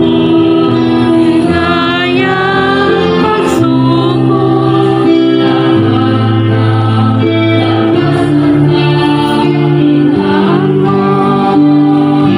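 A church choir singing a slow hymn, with long held notes in the voices over sustained low accompanying notes that change every couple of seconds.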